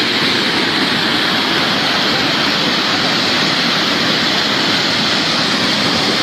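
Loud, steady rush of fast-flowing floodwater, an unbroken wash of noise with no pauses.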